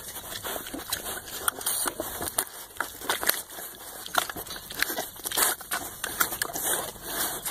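A pig drinking from a nipple waterer, its mouth working the valve with irregular clicks and smacks.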